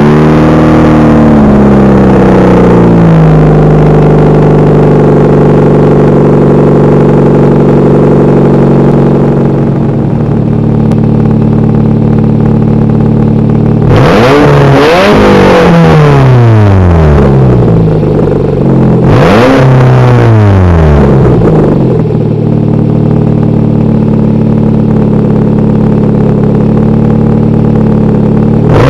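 Nissan Sentra 1.8-litre four-cylinder engine running with no exhaust fitted, straight from the open flange, just after a cold start. The fast idle settles lower over the first few seconds and then holds steady. About halfway through it is revved in a few quick blips, again a few seconds later, and once more at the very end.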